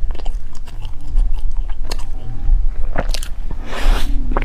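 Close-miked eating of chocolate bread: chewing with many small crackles of the crisp crust, and a louder crunchy bite a little before the end.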